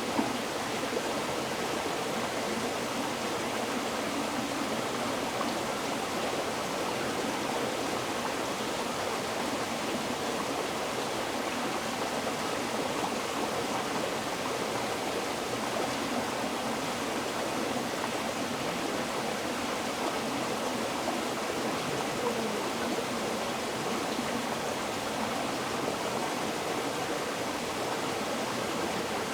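River water flowing over rocks, a steady even rush of moving water.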